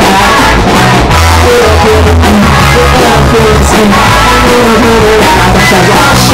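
Live rock band playing loud: electric guitars, bass and drums, with a man singing into the microphone.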